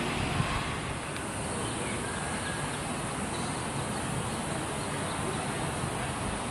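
Steady outdoor rush of wind noise on the microphone, with one brief knock about half a second in.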